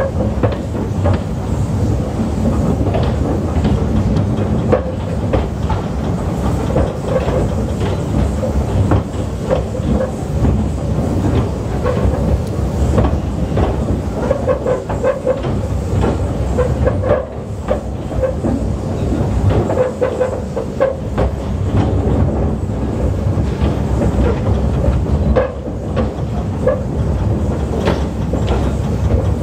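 Narrow-gauge rail vehicle running along the track: a steady rumble with frequent clicks of the wheels over the rail joints.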